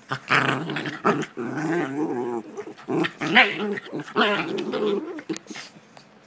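Puppies growling in rough play, in several snarling runs whose pitch wavers up and down, stopping about five and a half seconds in.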